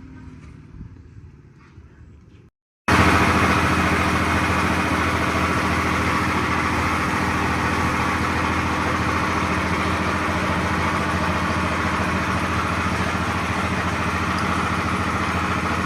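Mitsubishi Canter 125PS diesel truck engine idling steadily, cutting in suddenly about three seconds in after a few seconds of faint clinking.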